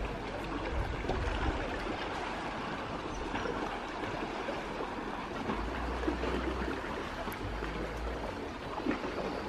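Small waves lapping and washing against a rocky shore, a steady wash of water, with a few low rumbles of wind on the microphone.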